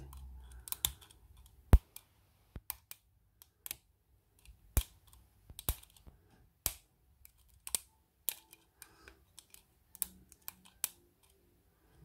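Lock pick and tension wrench working the pin tumblers of a stainless disc padlock: irregular sharp metallic clicks and ticks as the pins are lifted and set, a few louder than the rest, with quiet gaps between. The lock's pins are poor, typical of a cheap knock-off.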